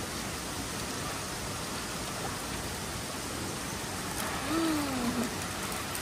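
Steady rush and splash of running spring water pouring from a dragon spout into a rocky pool. A brief voice sound is heard about four and a half seconds in.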